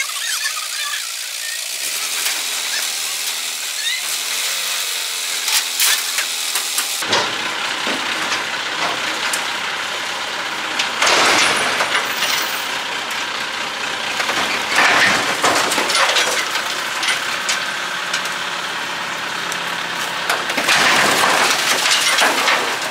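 Heavy vehicle engine running amid roadside noise, swelling louder three times in the second half.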